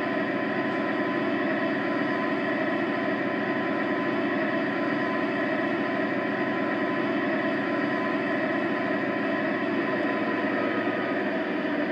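Recorded EMD 16-645E3 diesel engine sound from a Zimo sound decoder, played through the Visaton loudspeakers of a G-scale GP40 model locomotive, idling steadily.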